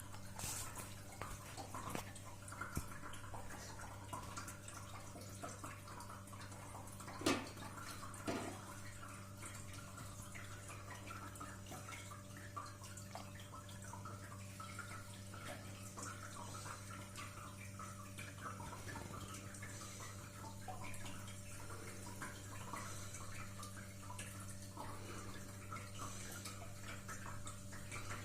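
Cat water fountain running: water trickling and dripping steadily over a steady low hum. A sharp knock comes about seven seconds in, and a softer one a second later.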